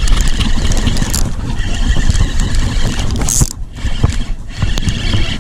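A hooked redfish thrashing and splashing at the surface beside a kayak, with two sharper splashes about a second in and just past three seconds, over a steady rumbling noise.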